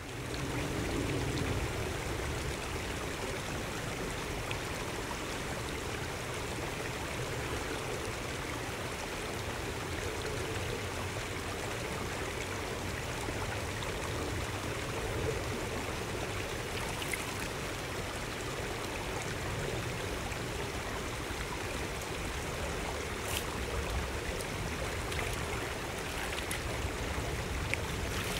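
Shallow rocky stream running steadily over stones, a constant rush of water, with a few faint clicks now and then.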